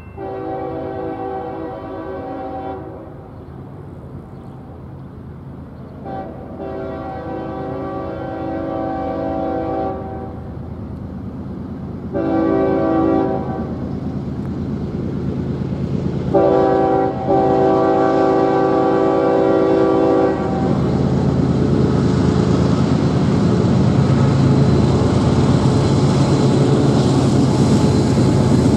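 CSX freight train's diesel locomotive horn sounding the grade-crossing signal, long, long, short, long, as the train approaches. After the last blast the rumble of the locomotives and the wheels on the rails grows steadily louder as the train draws close.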